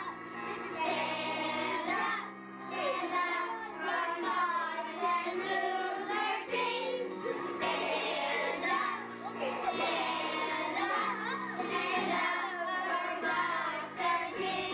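A group of children singing a song together over instrumental accompaniment.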